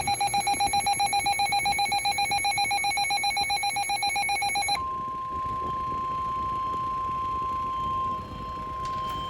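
A rapidly pulsing electronic alarm tone. About five seconds in, it gives way to one steady, held tone: the NOAA Weather Radio 1050 Hz warning alarm tone that comes before a broadcast warning.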